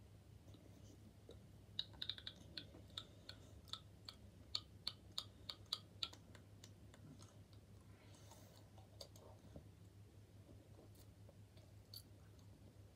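Chewing a crunchy snack: a run of crisp crunches for about four seconds, starting about two seconds in, over faint room tone.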